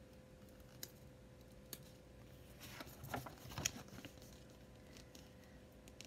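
Faint paper rustle and a few soft clicks as a picture-book page is turned, most of it in a short cluster around the middle.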